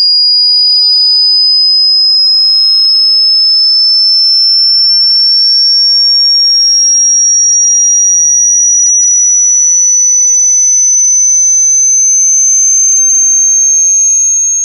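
Loud electronic alarm tone: a single high whistle-like pitch rising slowly and evenly, with two fainter tones beneath it, one rising and one falling, that cross about halfway through. It fades out at the very end.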